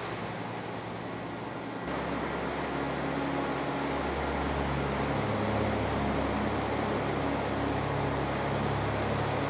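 Steady wash of ocean surf breaking on the beach, with a low sustained drone underneath that shifts pitch a couple of times.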